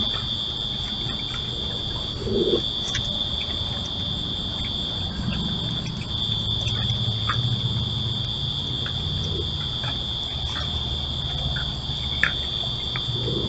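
Night insect chorus: a steady, high-pitched trill throughout. Scattered faint clicks and small splashes from raccoons wading in a plastic kiddie pool of water.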